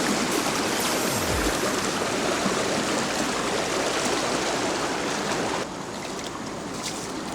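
Rushing stream water: a steady, dense hiss of running water that drops to a quieter level about two-thirds of the way through.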